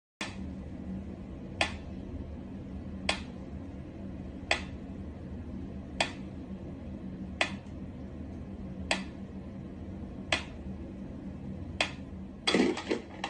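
Mechanical pyramid metronome ticking at a slow, even beat, about one sharp tick every second and a half, over a steady low hum. A louder scuffling clatter comes near the end.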